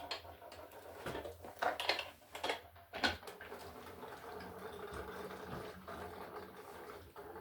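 An oil-filled radiator knocking and clunking as it is handled and turned upright on its wheels: a handful of separate knocks over the first three seconds. After that, a faint, steady hum.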